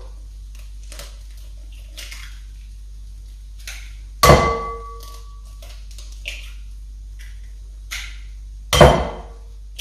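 Eggs knocked against the rim of a glass mixing bowl to crack them: two sharp knocks, about four and a half seconds apart, each leaving the glass ringing briefly, with small clicks of shell and hands between.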